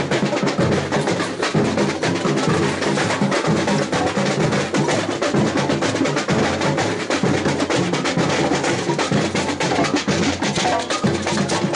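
Street percussion band of bass drums and snare drums beaten together in a steady, driving rhythm.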